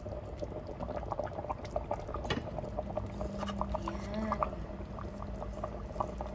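Pot of beef stew simmering, with many small bubbling pops, while a plastic spoon and a wooden spatula stir peanut butter through the thick sauce.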